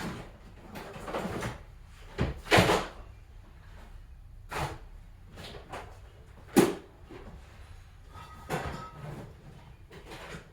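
Tools and parts being handled in a workshop: a series of irregular knocks and clatters, with rummaging sounds in between. The two loudest knocks come about two and a half and six and a half seconds in.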